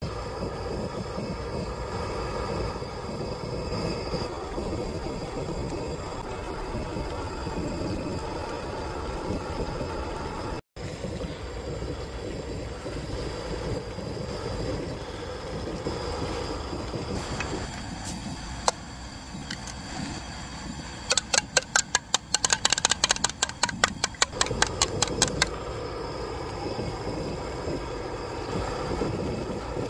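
Steady rumbling hiss of a portable gas stove's burner under a pan of boiling ramen broth. About two-thirds of the way through comes a quick run of sharp taps, roughly four or five a second, lasting about four seconds.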